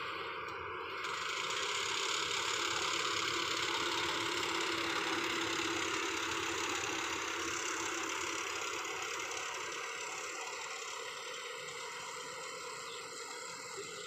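Yanmar rice combine harvester working: its diesel engine and cutting and threshing machinery make a steady, noisy din. It gets louder about a second in and slowly fades toward the end as the machine moves off.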